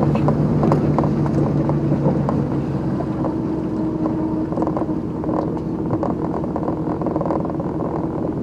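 A vehicle engine running steadily, with frequent light rattles and clicks over it.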